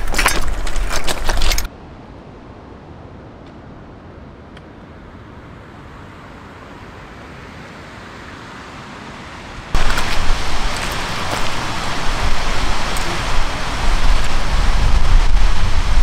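Trekking poles and boots clicking and crunching on loose scree for the first couple of seconds, then an abrupt drop to a quiet, steady outdoor hiss. From about ten seconds in, loud wind buffets the microphone with a heavy rumble, growing stronger near the end.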